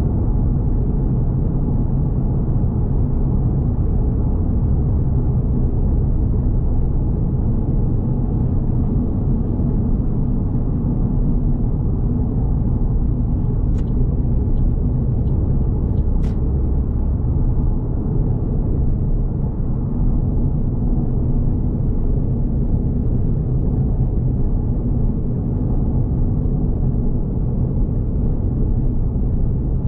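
Suzuki Swift Sport's 1.6-litre M16A four-cylinder engine and tyre noise heard from inside the cabin, a steady rumble while cruising at a constant speed. A couple of faint clicks come about halfway through.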